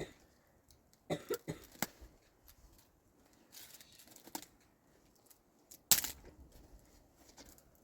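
Scattered clicks and knocks from objects being handled: a quick cluster about a second in, a brief rustle around four seconds, and one sharp knock near six seconds.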